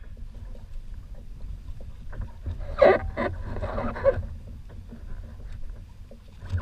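Low, steady wind rumble on the microphone and water moving around a sit-on-top kayak, with a cluster of brief rustles and knocks around the middle as a smooth-hound shark is handled on the angler's lap.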